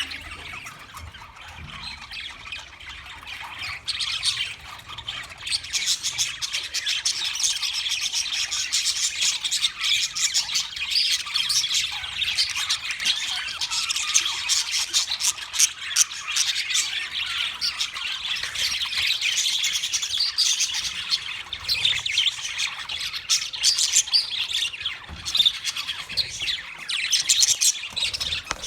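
A flock of budgerigars chattering, a dense continuous warble of many quick chirps and squawks overlapping. It builds up over the first few seconds and stays busy throughout.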